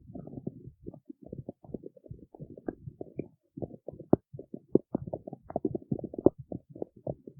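A stomach growling: a dense, irregular run of short, low gurgles and pops with no pause.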